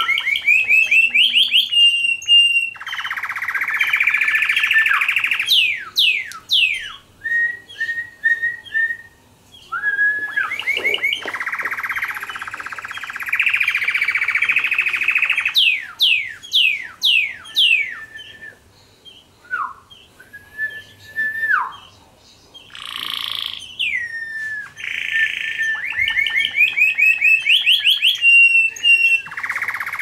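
Domestic canary singing: a long varied song of fast trills and rolls, runs of quick downward-sweeping notes and short whistled phrases, broken by brief pauses.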